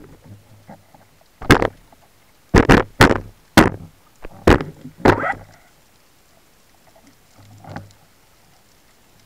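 Sharp knocks and clunks against a wooden speargun underwater, a quick irregular run of them in the first five seconds, then one fainter knock near the end.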